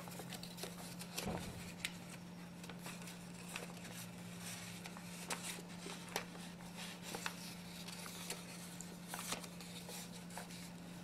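Creased origami paper being picked up and handled: scattered soft crinkles and light taps of paper, over a steady low hum.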